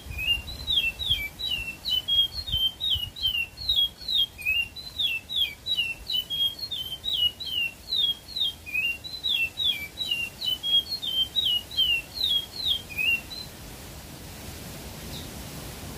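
A caged songbird singing a long, unbroken run of short, quick, repeated falling notes, about three a second. The song stops about thirteen seconds in, leaving a steady hiss.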